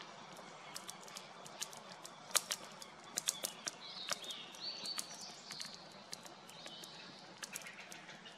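Wood campfire crackling with many sharp, irregular pops over a soft hiss. A bird chirps a few times around the middle.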